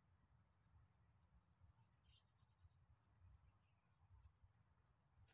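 Near silence: faint outdoor background with a thin, steady high whine and soft, regular ticking about three times a second over a low rumble.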